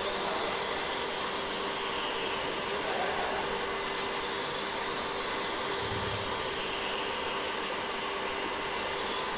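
Steady background hiss with a faint constant hum, and a soft low thump about six seconds in.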